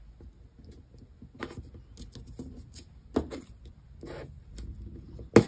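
Washi tape being unrolled, handled and pressed onto a paper planner page: scattered soft rustles and small taps. Near the end comes one sharp snap as the tape is cut against a washi tape cutter, a cut that goes awry.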